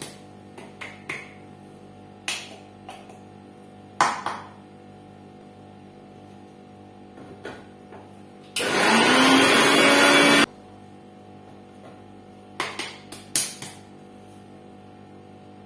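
Electric mixer grinder grinding dry-roasted cumin and coriander: the motor spins up and runs in one burst of about two seconds in the middle. Before and after it, the steel grinder jar knocks and clicks as it is handled, with a sharp knock about four seconds in.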